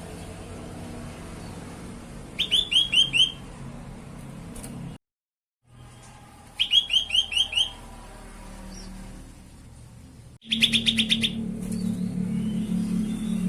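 Cucak kelabu (grey-bellied bulbul) singing: three short bursts of about five quick, falling whistled notes, a few seconds apart. A steady low hum rises under the song near the end, and the sound drops out briefly about five seconds in.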